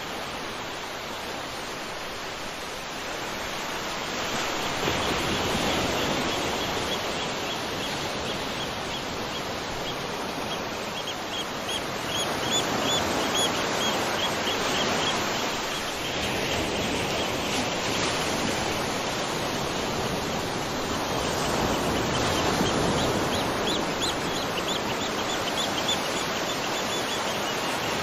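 Waterfall's steady rush of water, swelling and easing a little, with a small bird's rapid high trills breaking in a few times over it.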